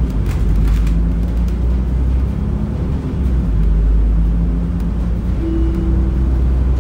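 Inside an Alexander Dennis DL20 double-decker bus on the move: a steady low engine and road rumble, with the air conditioning running clearly audible. A short steady tone sounds about five and a half seconds in.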